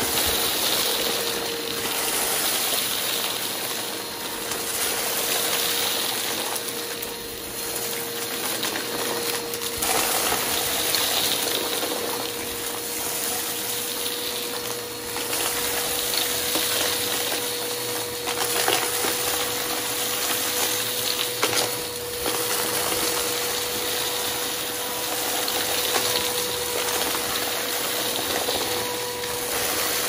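Vacuum cleaner running steadily with a constant motor whine, its sound rising and falling every few seconds as it is pushed back and forth, with a few sharp clicks.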